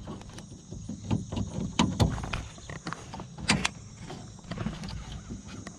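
Scattered clicks and knocks of hands working inside a car door, pushing the electrical connector onto the power window regulator motor; the sharpest clicks come about two seconds and three and a half seconds in.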